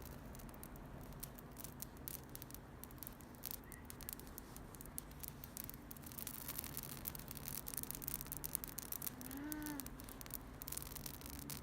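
Wood campfire crackling, with scattered sharp pops that come thicker about eight to ten seconds in.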